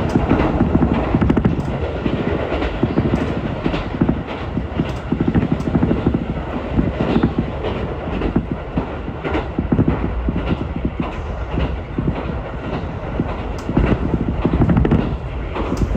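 Ichibata Electric Railway train running between stations, heard from inside the car: a steady rumble of wheels on rail with irregular clicks and clatter over rail joints.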